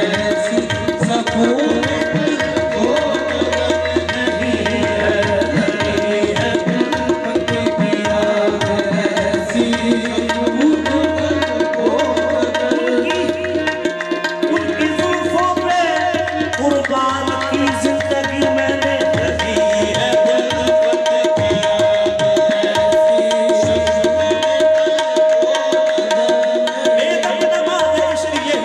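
Qawwali music: harmoniums playing a melody over a held drone note, with tabla keeping a steady beat.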